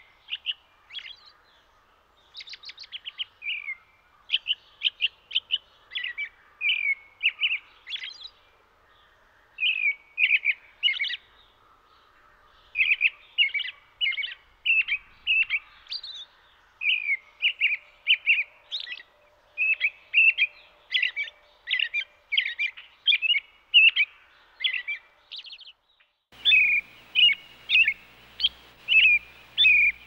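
Robin singing: short chirping phrases repeated in loose runs. About 26 seconds in, a different recording takes over, with a steady low hum beneath a faster, evenly spaced run of phrases.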